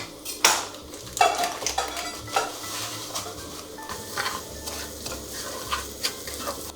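A utensil stirring breadcrumbs through sizzling melted butter in a pan, scraping and tapping irregularly against the pan.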